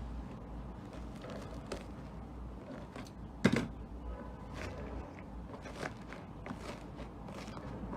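Slime being squished and pulled by hand, giving scattered wet clicks and pops, with one sharp, louder pop about three and a half seconds in.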